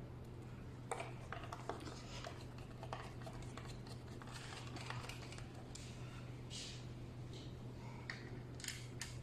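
Scattered small clicks, taps and scrapes of hands handling a hard drive and the NVR box's casing, irregular throughout, over a steady low hum.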